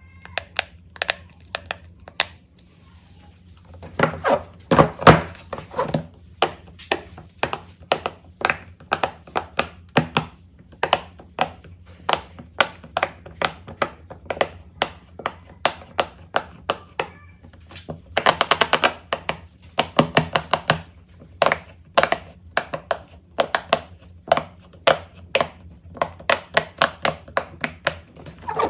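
Silicone pop-it fidget toy bubbles being pressed through one after another by fingers, a steady run of soft popping clicks several times a second. A quick burst of pops comes just past the middle.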